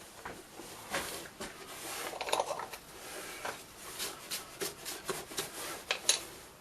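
Light metallic clicks and clinks, scattered and irregular, from small metal parts and tools being handled at the lathe.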